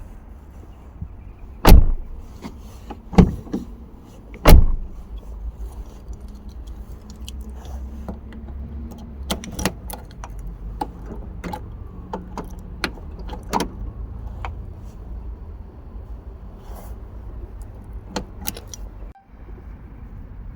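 VW Golf Mk3 door lock, freshly re-pinned, being worked with its key: three loud clunks in the first few seconds, then many lighter clicks and rattles of the key, lock and handle.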